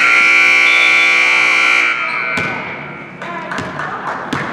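Gymnasium scoreboard horn giving one loud buzz of about two seconds, then cutting off and ringing briefly in the hall. A couple of sharp thuds follow near the end.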